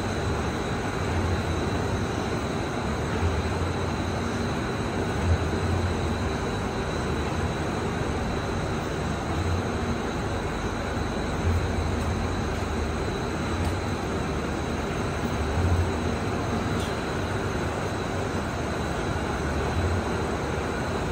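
LYAN-1850 solidboard laminating machine running: a steady industrial drone of motors and rollers, with a low rumble that swells and eases and a thin, steady high whine over it.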